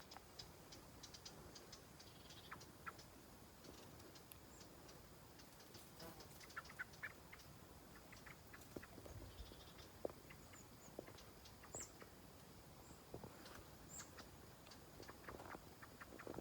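Near silence, with faint scattered clicks and a few short, high bird chirps.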